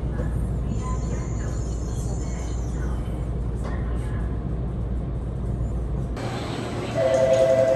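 Steady low rumble inside a Tokaido Shinkansen car as the train rolls slowly along the platform into a station. About six seconds in it gives way to platform sound, and about a second later a loud electronic two-note tone with a fast pulse starts.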